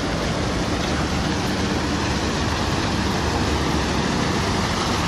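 A steady rushing noise with an uneven low rumble underneath, even in level throughout.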